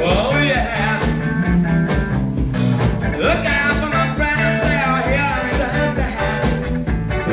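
Rock and roll music played by a band, with a steady drum beat under a repeating bass line and bending melodic lines above.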